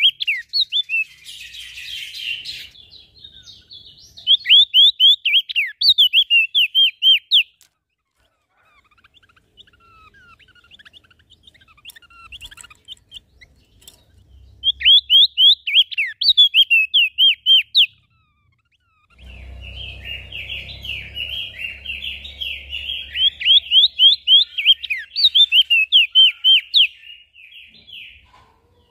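Small songbird singing in loud bursts of rapid, sharp, downward-sliding chirps, each burst lasting two to three seconds. In the second half it breaks into a longer, denser, scratchy warbling passage, with a low rumble underneath.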